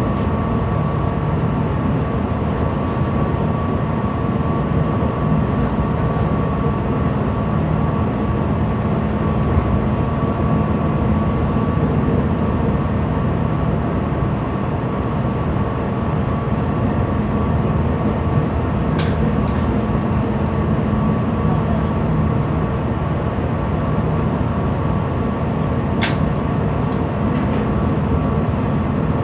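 Steady drone of a ship's engine and machinery during slow-speed manoeuvring, a dense low rumble with a thin, steady whine running through it. Two short sharp clicks come through, one past the middle and one near the end.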